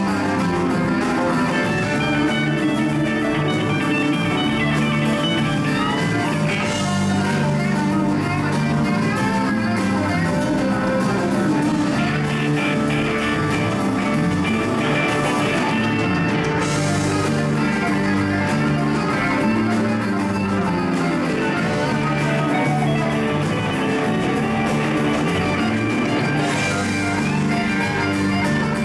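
Live blues-rock band playing an instrumental passage, electric guitars out in front over drum kit and bass, with a few cymbal crashes.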